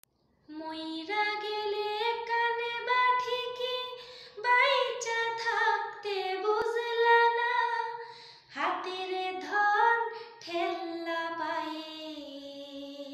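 A woman singing solo and unaccompanied, in long held notes that bend and glide, with short pauses for breath.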